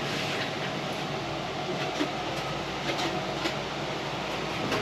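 Steady background hum, with a few faint light clicks about two, three and three and a half seconds in.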